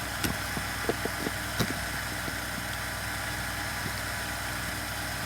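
A few light clicks and taps from small chainsaw parts and hand tools being handled, mostly in the first two seconds, over a steady low hum.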